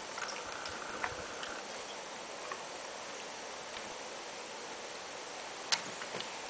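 Horse trotting on grass while pulling a light two-wheeled cart, its hoofbeats soft and moving away, with a few sharp clicks, the loudest one near the end.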